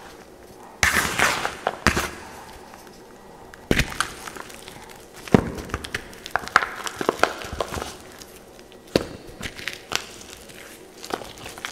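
Blue-dyed gym chalk and dried cloud soap crushed and crumbled by hand, giving irregular sharp crunches and crumbly rustling. The loudest crunching comes about a second in.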